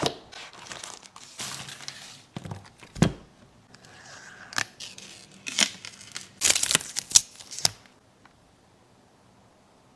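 Irregular rustling, crinkling and clicking of things being handled, busiest in a quick flurry near the middle and stopping about eight seconds in.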